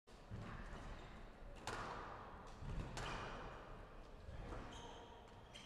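Squash rally on a glass court: three sharp cracks of the ball struck by rackets and hitting the walls, each ringing on in the hall, with short squeaks of court shoes and thuds of footfalls on the wooden floor between them.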